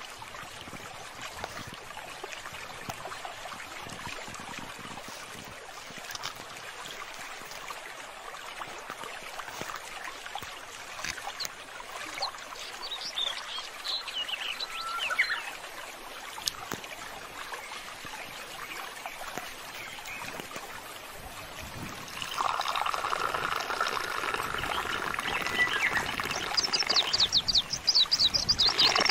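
Water flowing steadily along a narrow concrete irrigation canal, with a few birds chirping around the middle. About three quarters of the way through, a louder, steady chorus of animal calls comes in and continues to the end.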